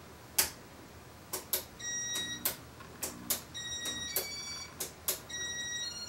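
Casablanca Four Seasons ceiling fan starting up in IntelliTouch demo mode. Sharp clicks come at intervals of about a second, and from about two seconds in there is a run of short electronic beeps that step between different pitches, while the blades begin to turn.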